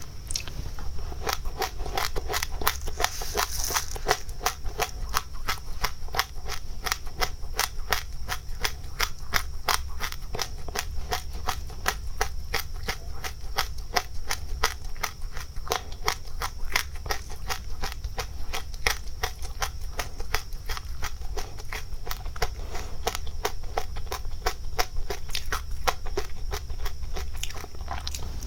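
Close-miked chewing of dry seeds: a steady, rapid run of crisp crunches and crackles.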